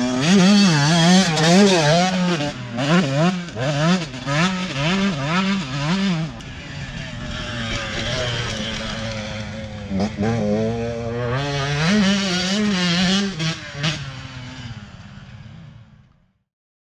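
Two-stroke enduro motorcycle, a Beta RR 300, ridden on a dirt track with the engine revving up and down in quick surges as the throttle is worked. It eases about six seconds in, surges again from about ten seconds, then fades away near the end.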